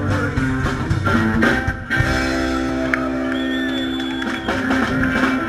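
Live rock and roll band with upright bass, guitar and drums playing; about two seconds in the drumming stops and a chord is held, ringing on steadily.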